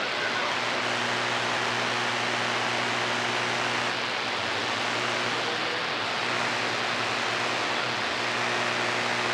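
CB radio receiver hiss (band noise) with a steady mains hum underneath. The operator puts the 60-cycle hum down to failing filter capacitors in a newly fitted amplifier.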